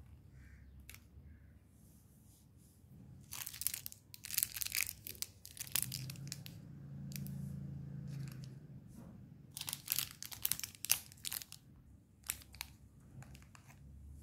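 Plastic candy wrappers crinkling as wrapped sweets are picked up and moved about, in three bouts of rustling: about three seconds in, around ten seconds, and again near the end.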